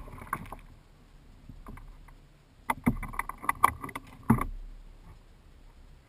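A released bass splashes into the water with a brief flurry right at the start. About three seconds in, a canoe paddle clatters and knocks several times against the canoe's hull, sharp hollow knocks with a short ring, the last and one of the loudest coming a little after four seconds.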